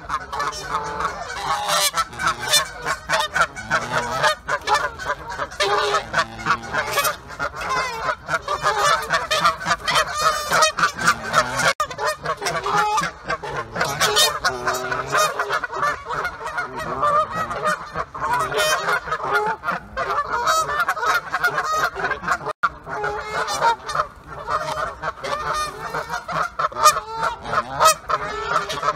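Many geese honking at once, their calls overlapping without pause.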